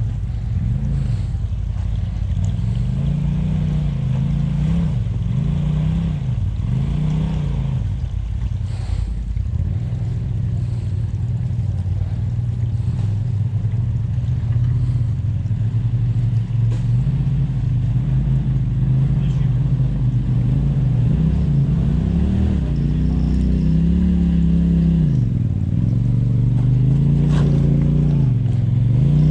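Polaris RZR Turbo side-by-side engines running and being revved while crawling over rocks. The engine note rises and falls every second or two as the throttle is blipped.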